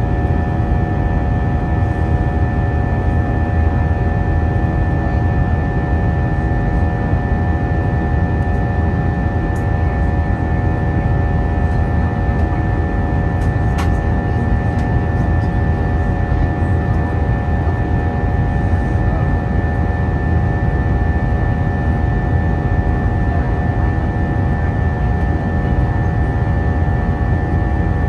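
Steady in-cabin noise of an Airbus A320 in flight, its IAE V2500 engines and the airflow giving a low, even roar with several steady tones on top. A few faint clicks about halfway through.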